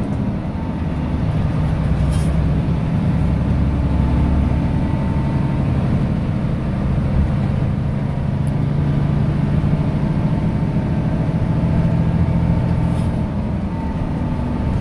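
Front-engine bus's diesel engine running steadily as the bus drives, heard from inside the cab next to the engine housing: a constant low drone whose pitch shifts a little, with a faint steady whine above it.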